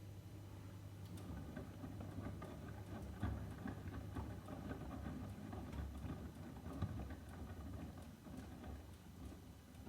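Miele W1 WKH130 front-loading washing machine running a boil wash: the drum turns and wet laundry tumbles in irregular soft thuds and knocks over a steady low hum.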